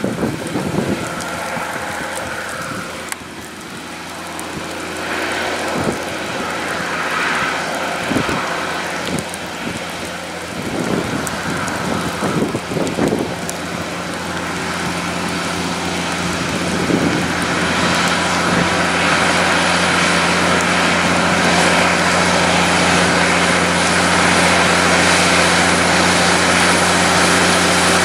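Heavy Kenworth C508 prime mover's diesel engine hauling an oversize load, droning steadily and growing louder as it approaches. Tyres hiss on the wet road.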